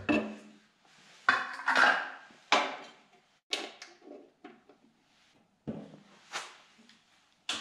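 A new plastic spool of 0.8 mm welding wire being fitted into a MIG welder's wire-feed compartment: a string of separate knocks and clicks, about eight in all.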